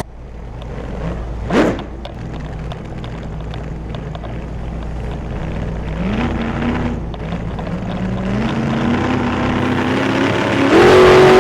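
A vehicle engine running and pulling away, its pitch stepping up several times as it accelerates, rising sharply near the end. A brief loud rising sweep sounds about a second and a half in.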